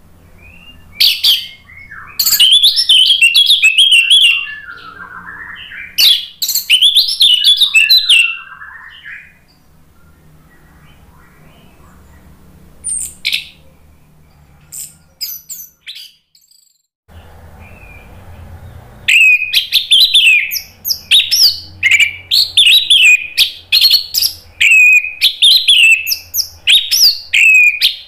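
Orange-headed thrush (anis merah) singing loud, full song of quick sliding whistled phrases. Two bursts of song come early, then a quieter stretch with only a few short calls, then an unbroken run of song over the last third.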